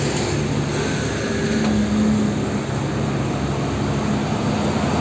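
A vehicle engine running steadily: an even rushing noise with a faint low hum beneath.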